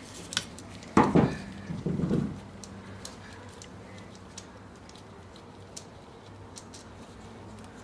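Small metal clinks and clicks of tools and parts being handled while a carburetor is taken apart, with a sharper knock about a second in and scattered light ticks after.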